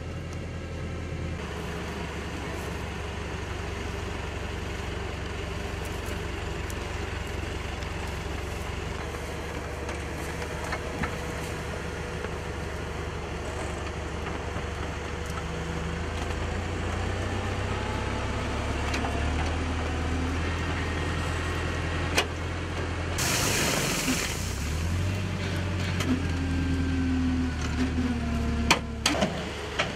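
Tractor engine running steadily, driving a trunk shaker clamped to an almond tree during mechanical almond harvesting. A brief loud rush of noise comes about 23 seconds in, and a few sharp knocks near the end.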